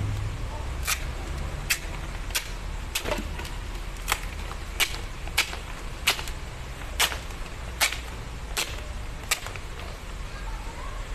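A steady series of about a dozen sharp clicks, a little under a second apart, over a low steady hum.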